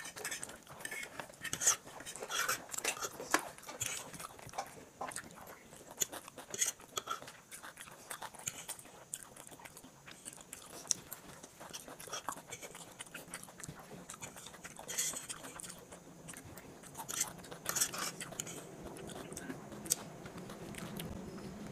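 Close-miked eating of chowmein noodles: chewing, with metal forks scraping and clicking irregularly on the plates as the last noodles are gathered up.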